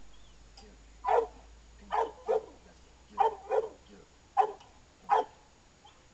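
A dog barking: seven short barks, spaced about a second apart, with two of them coming in quick pairs.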